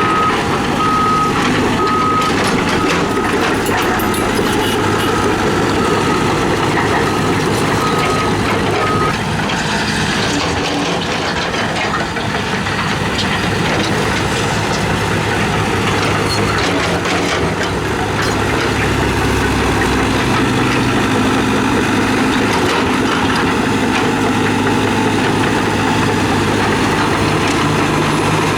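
Heavy diesel earthmoving machinery working: engines running steadily under load while a reversing alarm beeps evenly for the first nine seconds or so, then stops. Metallic clanks are scattered through the middle as the machines carry on.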